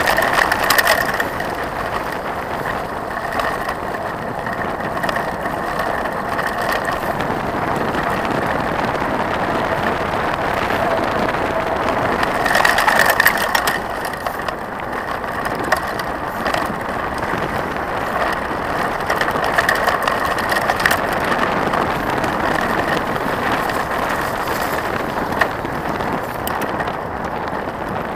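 Trek 4900 mountain bike rolling fast over a gravel forest road: a steady rough crunch of tyres on gravel with the bike's rattle, and scattered sharp clicks and knocks over bumps. It is louder for a second or two about halfway through.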